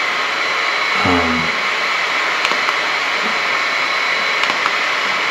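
A fan running loud and steady: an even rushing noise with a thin, high, unchanging whine in it.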